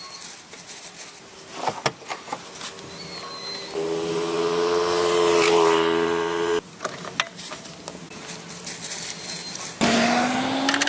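Short cut-together workshop sounds: scattered clicks and knocks, a motor running at a steady pitch for about three seconds, then a motor speeding up with a rising pitch near the end.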